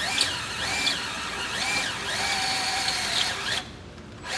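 Right-angle drill with a step bit boring out a pilot hole in a pickup truck's frame, its motor whine rising and falling as the trigger is worked. It stops about three and a half seconds in and starts again right at the end.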